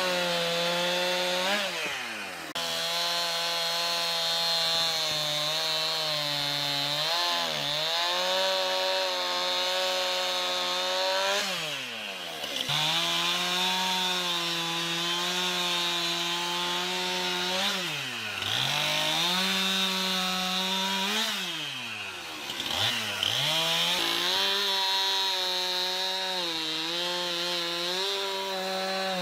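Two-stroke chainsaw running at high revs, cutting firewood logs. Its engine note drops and climbs back up about four times as the throttle is eased and squeezed again.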